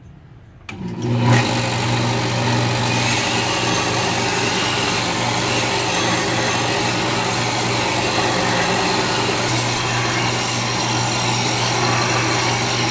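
Belt sander switched on about a second in, its motor coming up to speed within half a second and then running steadily with a low hum. Over the hum, the steel edge of a meat cleaver grinds against the running abrasive belt at an askew angle, a pass meant to even out the bevel.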